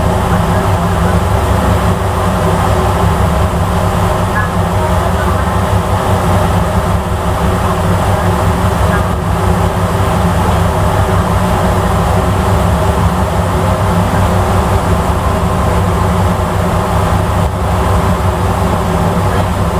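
Steady, loud drone of a passenger ferry's engines and machinery, a constant low hum with a rush of wind and water over it.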